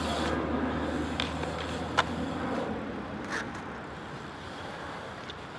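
BMX bike tyres rolling on skatepark concrete, a rushing sound that fades after about three seconds, with two sharp clicks, one about two seconds in and another more than a second later.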